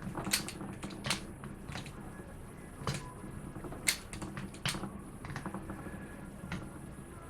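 Sharp metal clicks and taps of a spanner working on a motorcycle's front brake master cylinder, about seven, coming irregularly every second or so.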